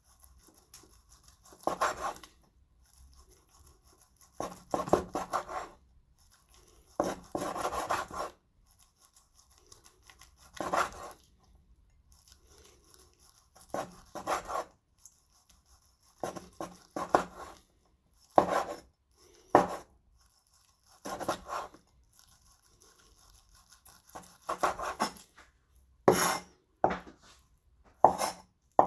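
A knife slicing through beef tendon on a chopping board: a series of separate cuts a second or two apart, some drawn-out and scraping, others short and sharp, with quiet pauses between them.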